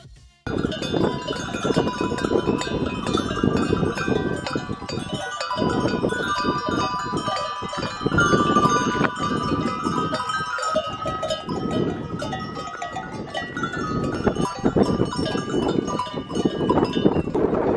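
A herd of goats on the move, many of them wearing bells: a dense, continuous clanking and jingling of goat bells, starting abruptly about half a second in.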